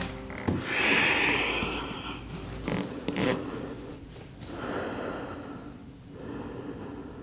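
A person breathing slowly and audibly, several long breaths with the strongest about a second in, while settling into child's pose. There are a few light knocks of body movement.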